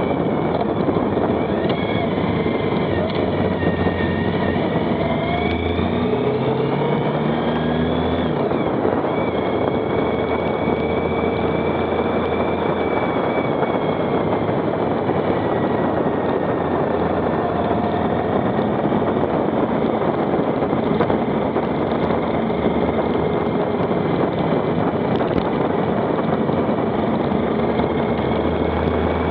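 Motorcycle being ridden at speed, heard from the bike: a steady rush of wind noise over the engine. The engine note climbs in steps about six to eight seconds in.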